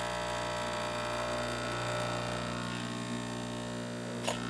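Espresso machine's electric water pump running while a shot is pulled, a steady buzzing hum. A single sharp click comes near the end.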